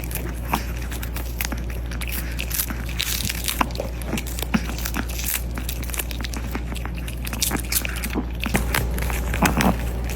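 A dog chewing and crunching its food close to the microphone: irregular crisp crunches and clicks over a steady low hum.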